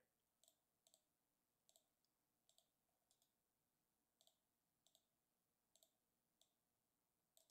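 Faint computer mouse clicks, about ten short sharp clicks at an uneven pace of one or two a second, over near silence.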